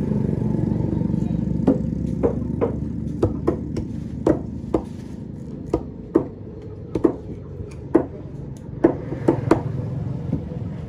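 Irregular sharp knocks and taps of a knife blade against a thick wooden chopping block as a fish is cut, starting a couple of seconds in, over a steady low engine rumble that eases early on.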